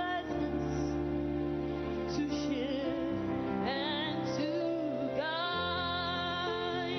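Slow, tender gospel music: sustained chords under a melody that glides between long notes with vibrato.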